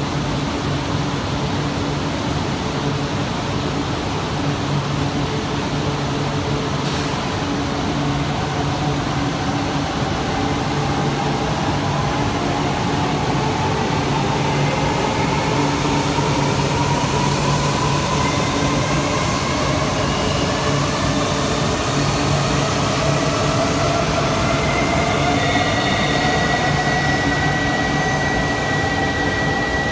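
Shinkansen traction motors whining steadily higher in pitch as a train accelerates away on a neighbouring track, over a steady low hum in an underground station. A steady high tone starts near the end.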